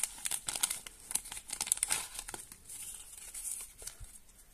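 Small clear plastic zip-lock bag crinkling as it is handled, with dense sharp crackles for the first two seconds or so, then softer rustling.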